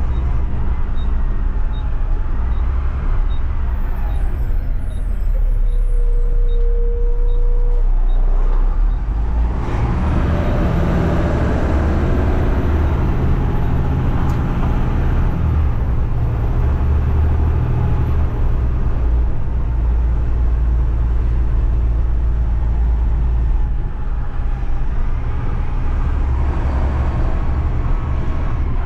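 Front-loader garbage truck engine running, its sound growing fuller from about ten seconds in. A short steady tone sounds about six seconds in, and faint regular ticking is heard over the first eight seconds.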